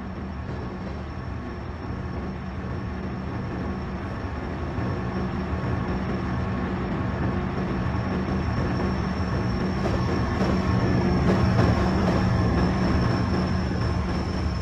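A running vehicle's steady low rumble with a few constant whining tones over it, growing slowly louder until about three quarters of the way through, then easing a little.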